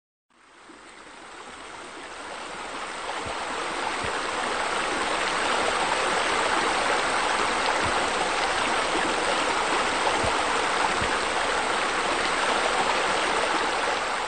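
Steady rush of flowing water, fading in over the first few seconds and then holding even, with a few faint low gurgles.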